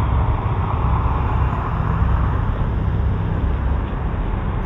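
Steady road-traffic rumble and hiss, heard through a doorbell camera's microphone.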